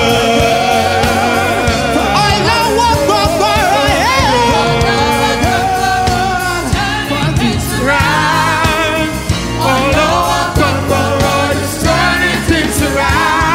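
Live gospel worship music: a group of singers with a lead voice and backing harmonies singing over a keyboard-led band with drums, continuing without a break.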